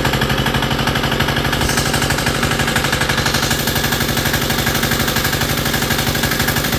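Single-cylinder 3 hp 168F diesel engine running on its first break-in run, with a rapid, even knocking beat. About two seconds in, the sound grows brighter and hissier.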